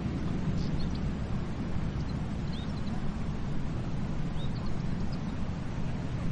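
Ocean waves washing on a beach, a steady low rush of surf, with a few short high bird chirps over it.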